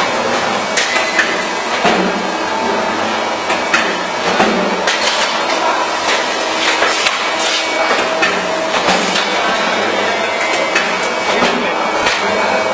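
Automatic sandpaper disc cutting press running: a steady machine hum with many sharp clattering knocks at uneven intervals, amid general factory noise.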